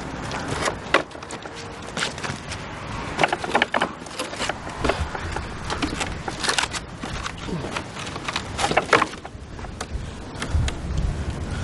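Wooden ladder knocking and scraping against a mud-brick wall as a man climbs it: scattered sharp knocks and scuffs over a steady background hiss.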